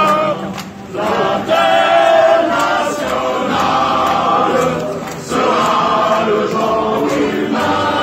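A protest crowd singing a chant together, many voices holding long notes in phrases broken by short pauses.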